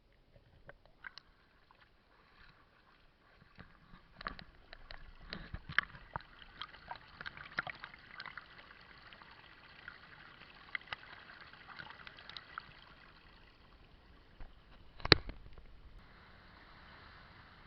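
Sea water trickling and gurgling among reef rocks, with many small scattered clicks and taps and one sharp knock about fifteen seconds in.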